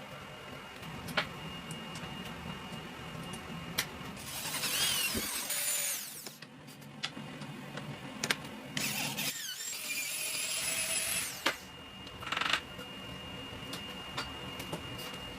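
Power tool working metal in two loud stretches of a few seconds each, about four and nine seconds in, over a steady high whine, with scattered sharp clicks and taps between.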